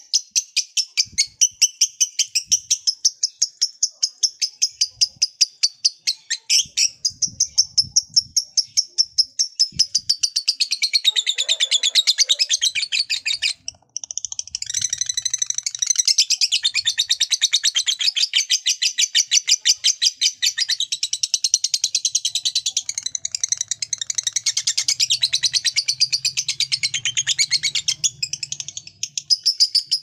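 Lovebird singing ngekek panjang, its long chattering song: a fast, unbroken run of sharp, high, rattling notes. It breaks off for a moment a little before halfway, then starts again and keeps going.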